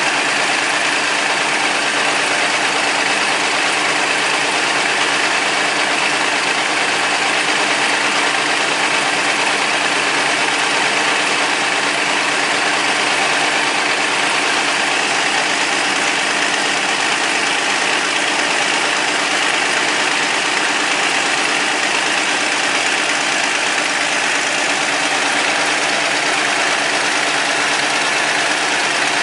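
Vintage Caterpillar D13000 diesel engine running steadily at an even speed.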